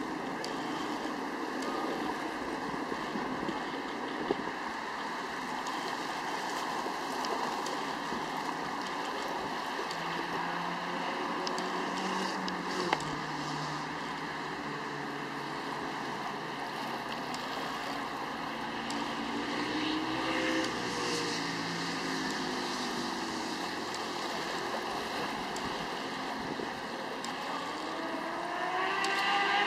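Seaside ambience: a steady haze of wind and water, with engines passing several times, their pitch rising and falling, and a few sharp clicks, the loudest about halfway through.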